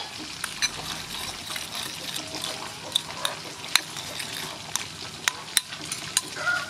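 Metal spoon stirring a tamarind dipping sauce in a white ceramic bowl: light, irregular clinks of the spoon against the bowl over the swish of the liquid.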